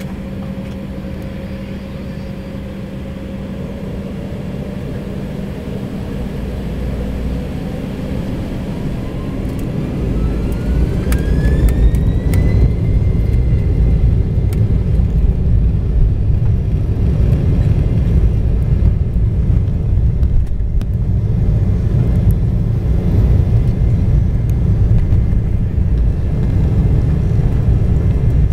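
Cabin sound of an Embraer 190's GE CF34 turbofans spooling up to takeoff thrust: the engine whine rises steadily in pitch over about eight seconds as the noise grows, then holds high while a heavy low rumble of the takeoff roll takes over.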